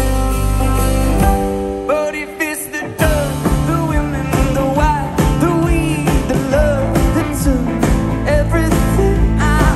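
Live folk-rock band playing: acoustic and electric guitars, bass and drums, with a male lead vocal. The bass and drums drop out briefly about a second and a half in, and the full band crashes back in about three seconds in.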